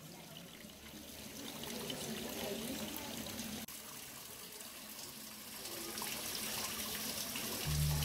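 Shallow water trickling and running over pebbles in a turtle enclosure's pool, a steady splashing hiss. Music comes in just before the end.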